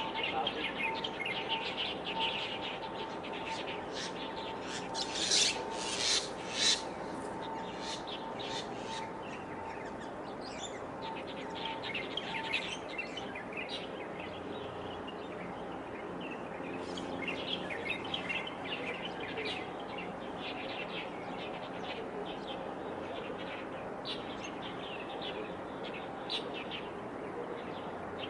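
Small birds chirping repeatedly in short calls, with a few louder scratchy rasps about five to seven seconds in. A faint steady hum underneath fades out about halfway through.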